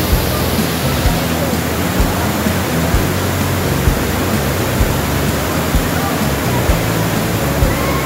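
Loud, steady roar of a tall waterfall crashing into a rock pool in a narrow gorge, with a background music beat underneath at about one thud a second.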